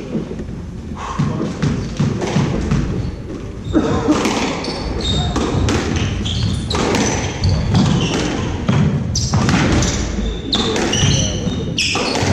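Squash rally: the rubber ball knocked by rackets and thudding off the court walls, with short high squeaks of shoes on the wooden floor between the hits.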